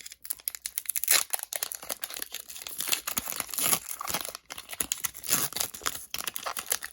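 Foil Pokémon booster pack being torn open and crinkled by hand, an irregular run of crackling and tearing.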